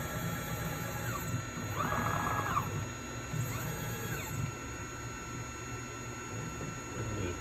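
Stepper motors of a 3018 desktop CNC router whining during jog moves of the spindle: a few short moves, each rising in pitch to a steady whine and falling away as it stops, the loudest about two seconds in.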